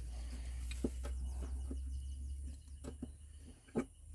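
Scattered light metallic clicks and knocks as the steel cylinder block and parts of a dismantled hydraulic piston pump are handled on a steel plate, the loudest knock near the end. Birds chirp faintly, and a low steady hum fades out about two and a half seconds in.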